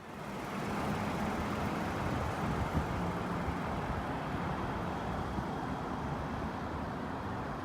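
Steady background rumble of distant road traffic, with a low hum.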